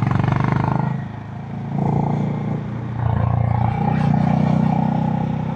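Stock exhaust of a Honda CB350 H'ness's air-cooled single-cylinder engine, thumping and bassy, while riding. It eases off about a second in, then pulls again from about two seconds.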